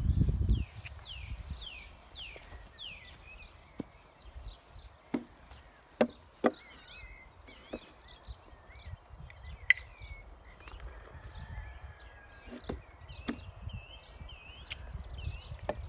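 A pony's hooves knocking on a wooden platform as she steps onto it and shifts her feet: a scattering of single knocks, the two loudest about six seconds in, half a second apart. Birds chirp in the background.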